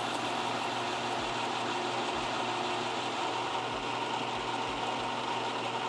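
Metal lathe running steadily while a turning tool faces a large metal workpiece, a constant motor hum under the even hiss of the cut.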